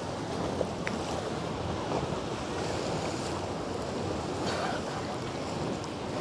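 Small sea waves washing steadily against a rocky shore: an even hiss of surf.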